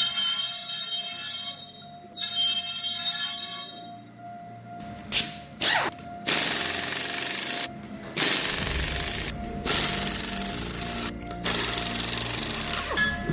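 Pneumatic impact wrench running in about six short bursts of a second or two each, as on wheel lug nuts, over background music.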